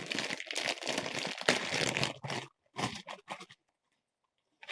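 LEGO set packaging being torn open and crinkled in the hands: a dense stretch of crackling and tearing for about two and a half seconds, then three short crinkles before it goes quiet.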